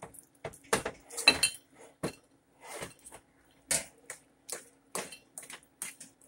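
A metal fork scraping and clinking against a skillet as it stirs thick Alfredo sauce with ground meat: a dozen or so short, irregular strokes.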